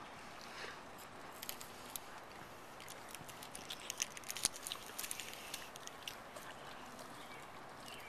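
Foil wrapper crinkling as it is peeled off a small chocolate egg: faint scattered crackles, busiest in the middle, over a steady outdoor background hiss.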